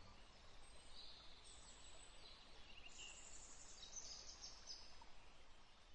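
Faint outdoor nature ambience: a soft hiss with thin, high bird chirps, fading away near the end.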